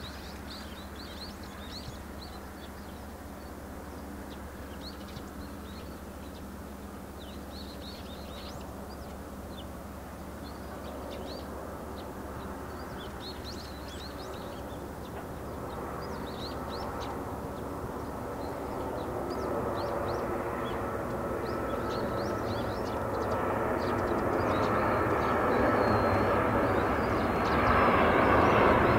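Boeing 737-700 airliner's CFM56-7 jet engines on landing approach, growing steadily louder as the plane draws near, with a rising engine whine in the last seconds. Birds call with short chirps over the first two-thirds.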